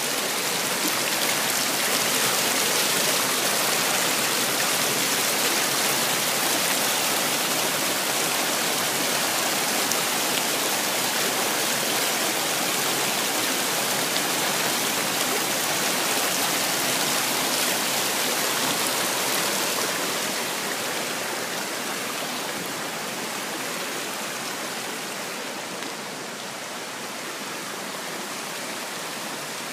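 Creek water rushing and splashing over rock ledges in a small cascade: a steady rushing that grows a little quieter about two-thirds of the way in.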